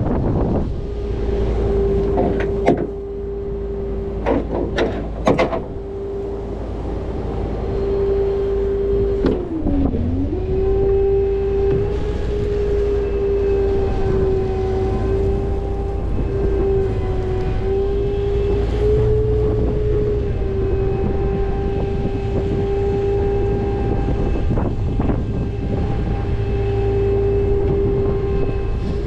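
Rollback tow truck running with a steady whine that dips in pitch once, about ten seconds in. Several sharp metallic knocks and clanks come in the first few seconds.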